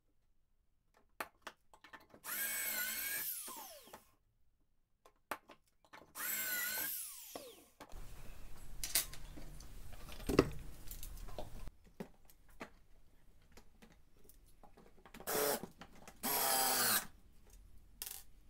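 Power drill run in four short bursts, each one speeding up and then winding down, with knocks and the handling of wooden panels in between and one sharp knock about ten seconds in. Near the end a cordless drill drives screws into the cabinet panels.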